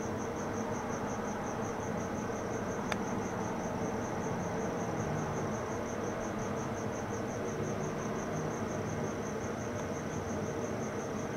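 Crickets chirping in an even, unbroken rhythm of about five chirps a second, over a low background hiss.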